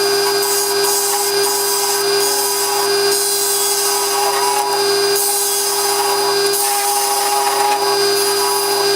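Wood lathe running with a steady hum while a turning tool takes light cuts on a small spindle-turned knob, the cutting hiss swelling and easing as the tool is worked.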